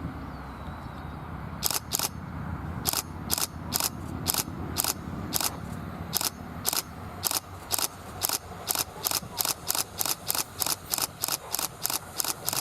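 Camera shutters clicking: single shots at first, then faster and faster, about three a second near the end. A low, steady rumble runs underneath.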